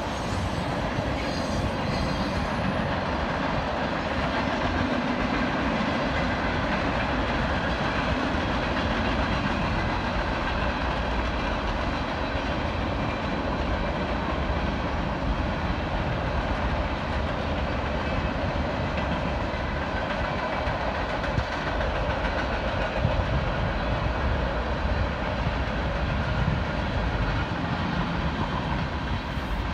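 A CN freight train's cars (tank cars, hoppers and boxcars) rolling steadily past, a continuous rumble and clatter of steel wheels on the rails.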